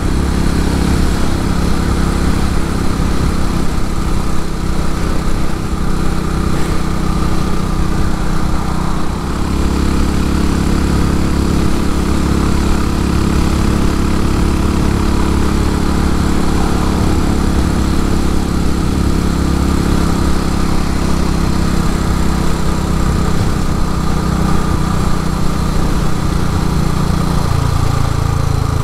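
Motorcycle engine running steadily at road speed, with wind noise over it. The engine note dips briefly about nine seconds in and drops lower near the end.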